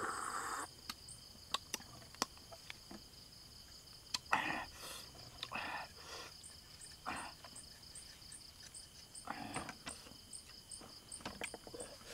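Insects trilling steadily, with a higher chirp repeating evenly over it. Over this come a few sharp clicks of a knife tip against snail shells and several short slurping noises as cooked snails are sucked from their shells, the loudest about four seconds in.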